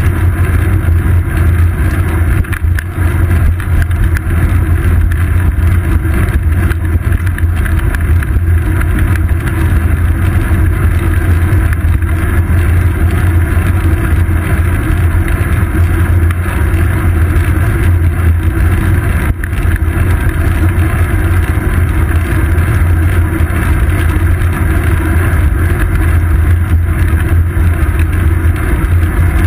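Steady wind rush and road rumble from a bicycle in motion, picked up by a GoPro mounted on the seat post; a loud, even low-pitched drone with no separate events.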